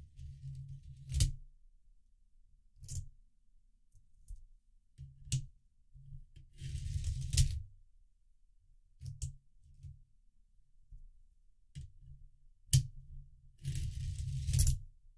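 Coins rolling down a 3D-printed plastic coin sorter's ramp and dropping into their slots, with a sharp click every couple of seconds between low rolling rumbles. There are two longer rattling runs, about seven seconds in and again near the end.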